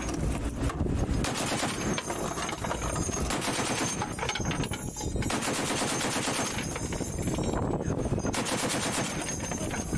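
Pedestal-mounted heavy machine gun firing long bursts of rapid, evenly spaced shots, with short lulls a few seconds apart.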